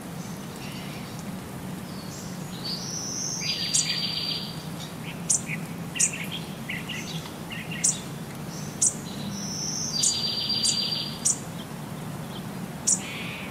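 Bird-like chirps and twittering with sharp, high clicks over a steady low hum. The same run of calls comes twice, about six and a half seconds apart.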